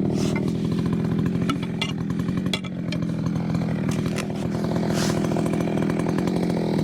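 Husqvarna chainsaw cutting through a large ash log, its engine running steadily under load with a couple of brief dips.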